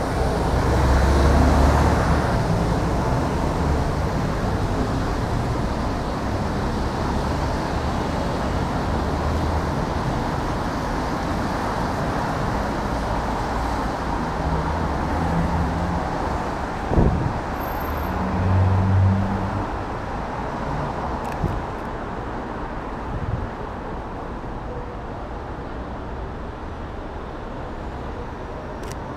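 City street traffic: a steady wash of vehicles passing, with low rumbling swells as heavier ones go by, and one sharp knock about seventeen seconds in.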